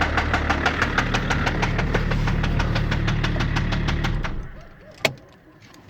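BMW M51D25 2.5-litre turbo-diesel straight-six idling with a rapid, even knock, the knock the owner is trying to trace; the engine is switched off about four seconds in and runs down. A single sharp click follows about a second later.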